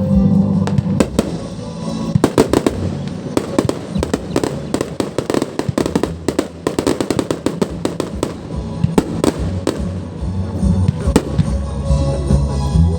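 Fireworks going off: many sharp bangs and crackles in quick succession, densest in the middle, with music playing underneath that comes through more clearly near the start and end.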